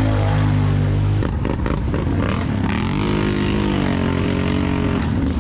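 ATV engine under throttle, held at high revs, then easing off about a second in with a few knocks before climbing and holding again.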